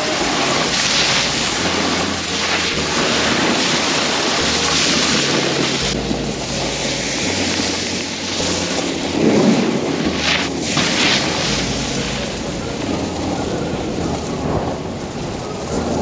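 Snowboard sliding and carving over slushy spring snow, a steady scraping rush, with wind buffeting the microphone.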